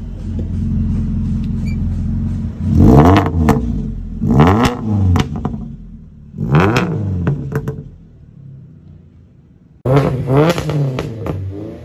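Tuned Maruti Suzuki Baleno with a loud aftermarket exhaust, idling, then revved hard three times, each rev falling away into pops and crackles from an exhaust tuned for pops and bangs. After a quieter stretch, a sudden sharp rev near the end brings more crackles.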